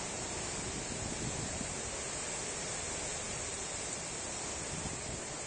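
Typhoon wind and heavy rain blowing as a steady, even noise, with no separate gusts or impacts standing out.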